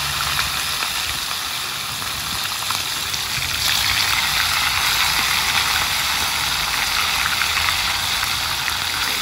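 Pigeon meat frying in hot oil in a skillet over a wood fire: a steady sizzle with fine crackles, growing louder a few seconds in.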